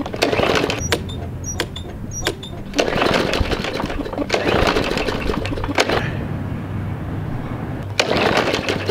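Gasoline push mower's small engine running steadily, with a rushing noise over it that swells and drops away several times.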